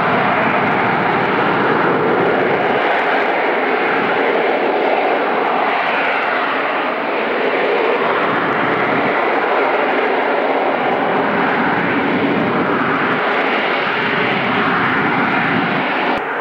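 Harrier jump jet's Rolls-Royce Pegasus turbofan running loud and steady in the hover, its jet noise swelling and fading slightly.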